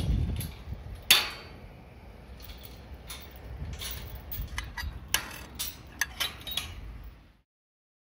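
Irregular light clicks and clattering of small hard objects over a low rumble, the loudest knock about a second in; it cuts off abruptly near the end.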